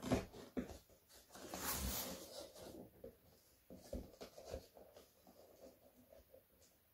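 Cardboard shipping box being handled on a glass tabletop: a sharp knock at the start, then about a second of rough scraping rustle as the box is moved and turned, followed by light taps and rustles.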